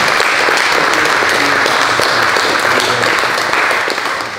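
Audience applauding, a dense clapping that dies away near the end.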